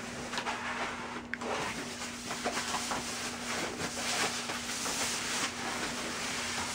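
Styrofoam packing and a plastic bag rustling and rubbing as a studio monitor speaker is unpacked from its cardboard box, with scattered small knocks. A steady low hum runs underneath.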